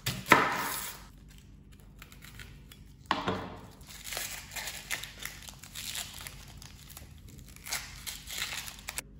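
Dry, papery onion skin crackling and tearing as it is peeled off a yellow onion by hand, in many small crackles. A sharp knock comes just after the start.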